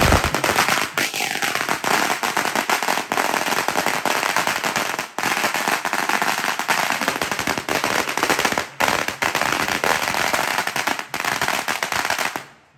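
Firecrackers going off in a rapid, unbroken crackle for over twelve seconds, cutting off suddenly near the end. A short falling whistle sounds about a second in.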